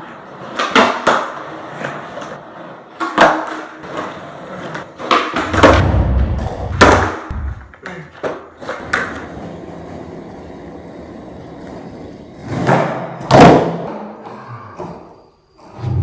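Skateboard flatground tricks: a series of sharp wooden clacks as the tail pops and the board and wheels land, with wheels rolling on pavement between them. The clacks come in clusters, a few early on, a burst around the middle and two loud ones near the end.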